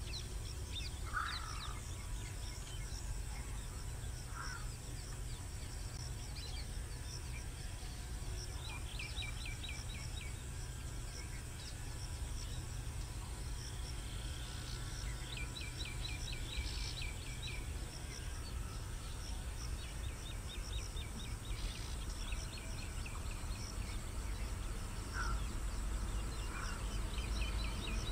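Outdoor rural ambience: birds calling, several quick runs of short high notes and a few lower single chirps, over a steady low rumble.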